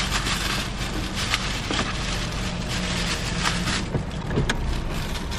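Plastic bag crinkling and rustling as it is handled, with scattered sharp crackles, over the steady low hum of an idling car.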